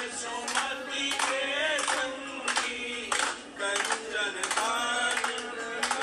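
A song sung by a group of voices over a steady clapping beat, about two claps a second.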